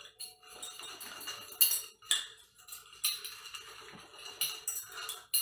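Folded paper slips rattling and tumbling inside a glass jar being shaken by hand, with irregular clinks and knocks against the glass; the sharpest knocks come about a second and a half in and near the end.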